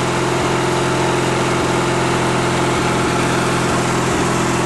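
Ranch King riding mower's small engine running with a steady note, an engine its owner says has been running rough and needs its carburetor rebuilt.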